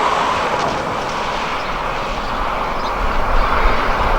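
Road traffic noise: a steady rush of vehicles passing on the highway, with a low rumble and uneven loudness near the end.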